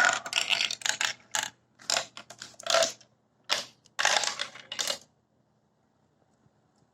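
Marbles clattering and rattling down a Quercetti Skyrail plastic marble run track, in bursts of quick clicks that stop about five seconds in.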